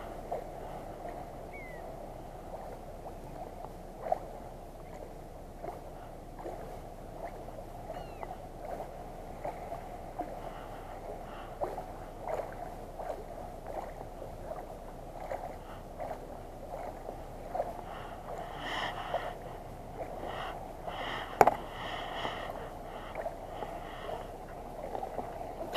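Water sloshing and gurgling against a float tube, with scattered light knocks and clicks.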